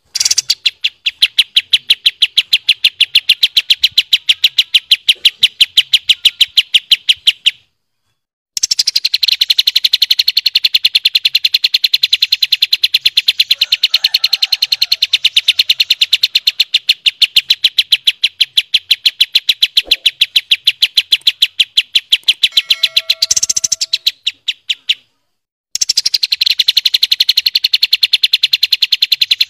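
A kapas tembak songbird sings its "tembakan": a long, fast roll of the same high, sharp note repeated about eight or nine times a second. It breaks off twice for under a second and starts again. This rapid-fire roll is the part of the song that is prized as a tutoring song for contest songbirds.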